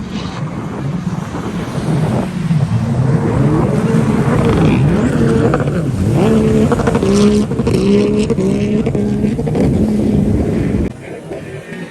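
Racing jet ski engines revving hard, the pitch rising and falling again and again as the throttle is worked. The sound cuts off abruptly near the end.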